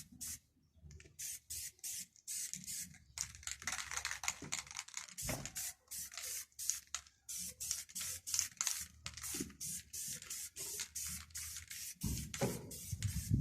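Rapid short bursts of hissing spray, two to four a second, with a longer steady hiss a few seconds in. A low rumble joins near the end.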